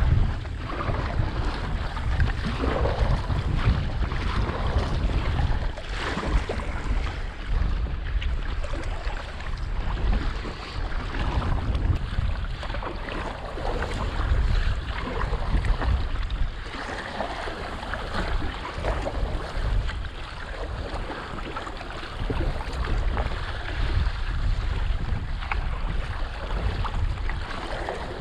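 Wind buffeting a GoPro's microphone in a low, steady rumble, with choppy water slapping against a playboat kayak's hull and paddle blades splashing in irregular strokes.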